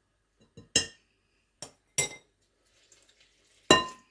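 Kitchen utensils clinking against a mixing bowl: four sharp, ringing strikes spread over a few seconds. The last, near the end, is the loudest and rings on briefly.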